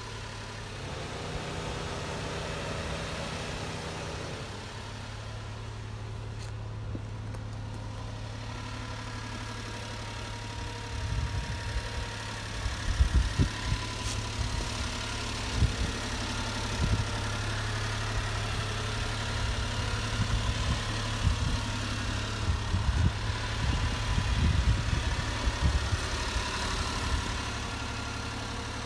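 Honda Acty kei truck's small three-cylinder engine idling steadily with a low, even hum. From about a third of the way in, irregular low thumps come and go over it.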